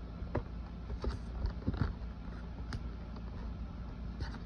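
Handling noise as a phone box is being unboxed: a handful of light taps and clicks scattered over a steady low hum.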